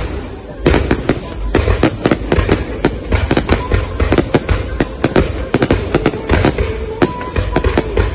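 Aerial fireworks going off in a dense barrage: rapid, overlapping sharp bangs and crackles over deep booms, with no let-up.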